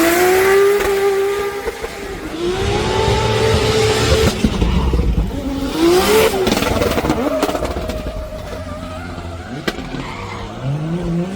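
High-performance car engine revving hard, its pitch repeatedly climbing and dropping with throttle and gear changes, over tyre squeal.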